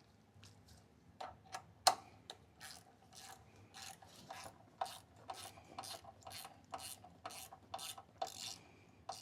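Hand ratchet wrench being swung back and forth to run a bolt down, about two rasping clicks a second, with the loudest stroke about two seconds in.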